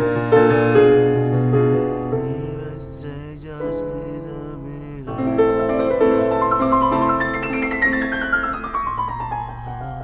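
Background music: a piano playing, with a run of notes falling in pitch near the end.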